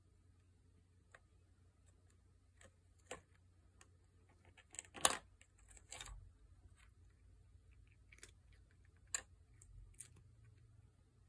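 Faint, scattered clicks and knocks of a pet treat puzzle being worked, with a louder clatter about five seconds in.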